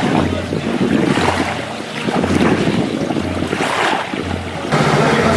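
Wind buffeting the microphone and water washing around a boat under way, over a low pulsing hum. About 4.7 s in, the sound cuts abruptly to a steady mechanical hum.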